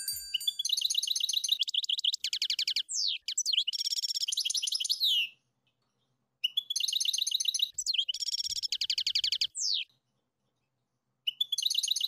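European goldfinch singing in quick, high twittering trills, phrase after phrase of about two seconds each. The song cuts off dead twice, once around the middle and once near the end, before starting again.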